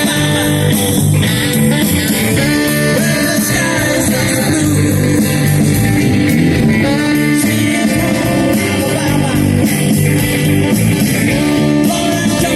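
Rock cover band playing a song, with electric guitar and a singer over a steady beat.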